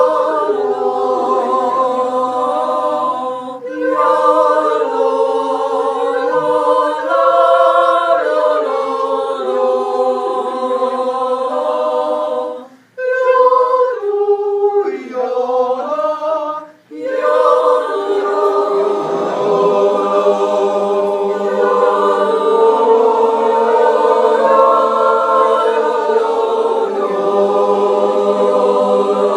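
Mixed choir singing an Appenzell yodel a cappella, in long held chords, breaking off briefly between phrases a few times.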